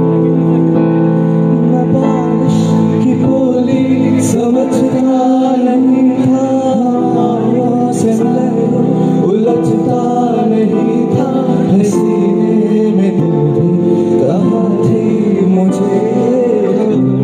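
Live band music: a man singing into a microphone over held electronic keyboard chords that change every few seconds.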